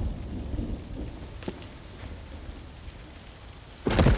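Low rumble of a train crash dying away, with small pieces of debris ticking and clattering down, then a sudden loud crash near the end.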